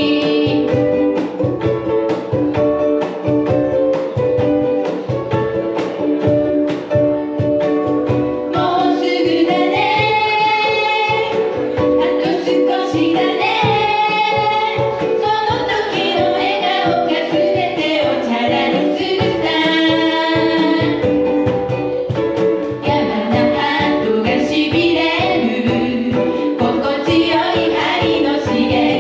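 Live ukulele trio strumming a steady rhythm while the players sing together, in a medley of Japanese pop songs.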